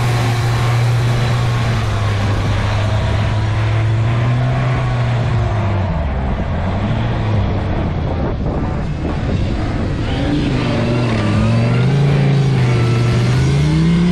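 Off-road 4x4 engine running at a steady speed, then revving up and down repeatedly from about six seconds in as it works through the course.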